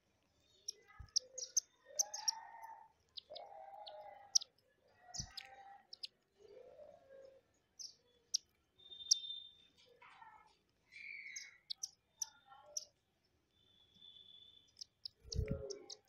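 Indian silverbills giving many short, high chirps while feeding at a glass of seed, with light clicks of beaks on the seed and glass. A few dull thumps, the loudest near the end.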